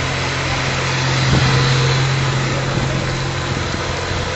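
Suzuki Samurai 4x4's engine idling steadily, with a brief knock about a second and a half in.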